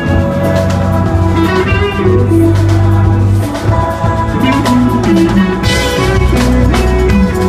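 Live band playing at a sound check: steady bass notes under a drum kit and guitar, with some bending, gliding notes around the middle.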